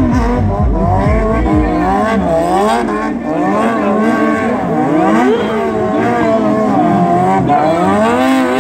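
Sport motorcycle engine revved hard and continuously during stunt riding, its pitch repeatedly rising and falling as the throttle is worked.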